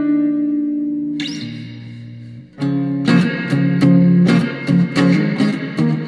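Three-string cigar box guitar, tuned E-B-E with frets set at the harmonics for just intonation, played up the neck. Held notes ring and fade, a new note comes in about a second in, and after a short pause about halfway through, notes are picked in quick succession, several a second.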